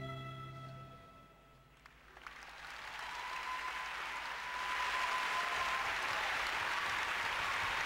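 Strings music fades out in the first second. After a brief lull, an arena crowd breaks into applause that builds and grows louder about halfway through.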